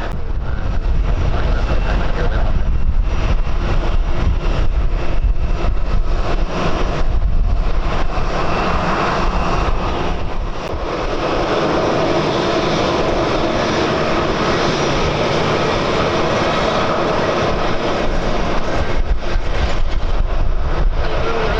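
Airliner's jet engines running, a steady whine with a droning tone that grows stronger about eight seconds in, over heavy wind buffeting the microphone.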